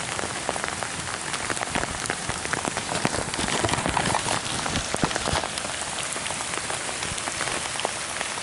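Steady rain falling, with many individual drops striking close to the microphone as sharp taps.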